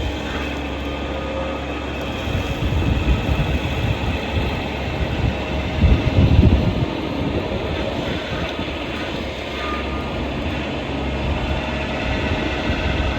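Bobcat E55 mini excavator's diesel engine running steadily during a hydraulic leak test. Its low rumble swells a few seconds in, and most strongly around six to seven seconds in.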